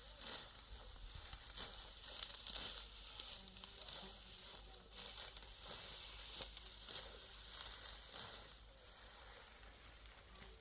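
Dry, ripe wheat stalks being harvested by hand, giving a continuous crisp rustling and crackling with many small snaps as the brittle straw is gathered and cut.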